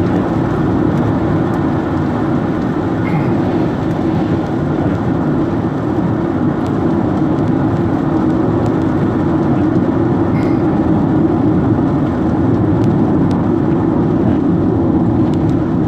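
Steady road and engine noise inside the cabin of a 2007 Hyundai Tucson 2.0L SUV cruising on a wet road in the rain.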